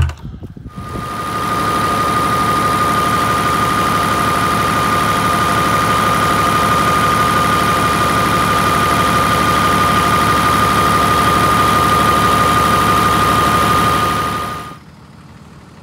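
Wood chipper's V12 engine running steadily with a strong high whine over its engine noise. It comes up to speed about a second in and drops away sharply near the end.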